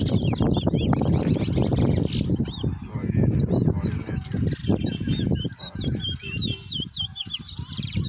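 Caged towa-towas (chestnut-bellied seed finches) singing against each other in a song race: rapid runs of bright whistled, warbling notes, one phrase after another. The song sits over a loud low rumble that eases in the second half.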